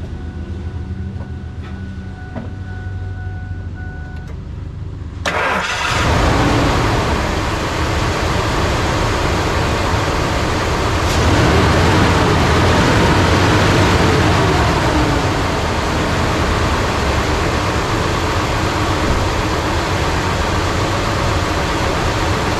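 Ford 5.4L Triton V8 in a 1999 F-250 Super Duty cranking and catching about five seconds in, then running, a little louder for a few seconds past the middle. It starts on the first try with freshly rebuilt fuel injectors.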